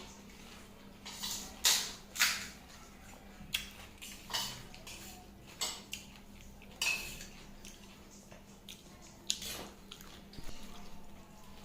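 Crisp fuchka (pani puri) shells cracking and crunching as they are bitten and eaten, in about a dozen short, irregular crunches, with light clinks of plate and utensils.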